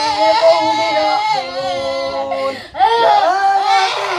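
A person wailing in long, loud, drawn-out cries with a wavering pitch, breaking off briefly just before three seconds in and then starting again.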